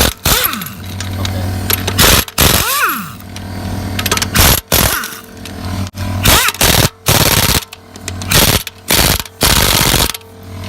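Impact wrench hammering in a string of short bursts, about ten with brief pauses between them, as it works loose the lug nuts on a car wheel.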